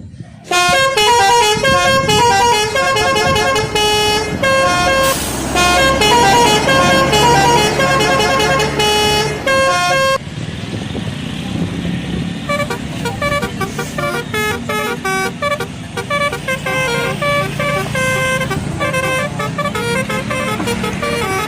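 Indonesian bus telolet horn: a set of air-horn trumpets played in quick alternating notes, a rapid melodic tooting that starts about half a second in, breaks briefly about halfway, then goes on, over a low engine hum.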